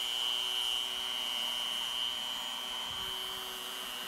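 Dremel rotary tool on a flex shaft running at a steady speed with a high whine, its bit carving small divots into a wooden drawer front for texture.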